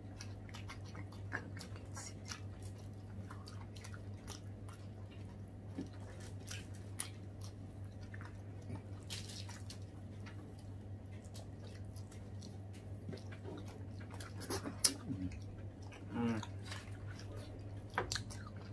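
People biting into and chewing slices of watermelon, many short chewing sounds scattered throughout, over a steady low hum.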